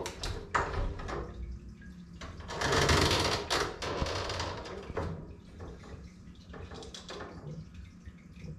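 Handling noises as a metal-reflector heat lamp is hung from a wooden bracket: scattered clicks and knocks, with a louder scraping rustle lasting about a second and a half around three seconds in, over a low steady hum.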